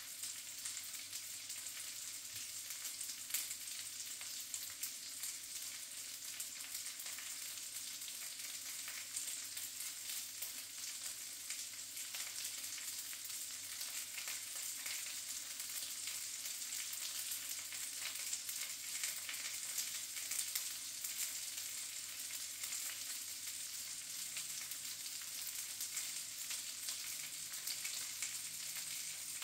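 Link sausages frying in bacon fat in a pan on a gas stove: a steady sizzle with frequent small crackles and pops of spitting fat.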